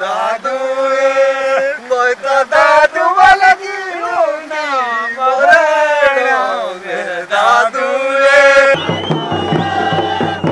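Men singing a local folk song about the Maun fishing festival, with long held notes. Near the end it changes suddenly to a large crowd of men chanting and shouting.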